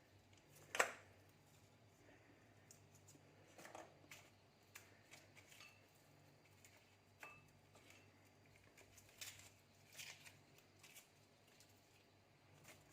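Near silence broken by faint scattered clicks and rustles of food being handled and trimmed by hand, with one sharper click about a second in.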